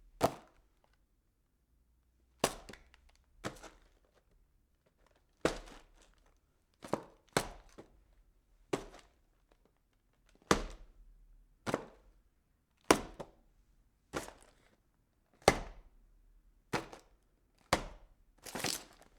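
Cardboard boxes being packed and handled: a string of separate sharp knocks and thuds, one every second or so at an uneven pace.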